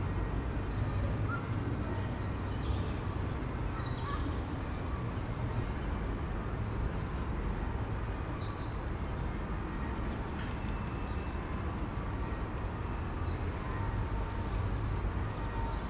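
Outdoor park ambience: a steady low rumble with faint, brief high calls of small birds scattered through it.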